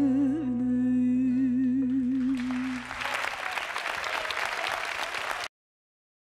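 A woman's voice holds one long sung note with a slow vibrato over a low, steady drone. About three seconds in, the note ends and the studio audience applauds. The sound then cuts off abruptly near the end.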